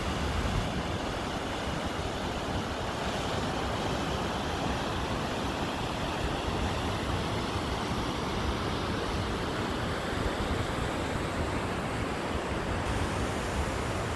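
Waterfall and river rapids rushing steadily, a continuous even roar of falling white water.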